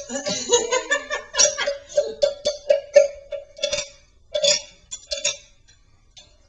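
Wooden croaking-frog guiro scraped and struck with its wooden stick: an irregular string of short rasping croaks with a hollow woody tone. The croaks stop about five seconds in.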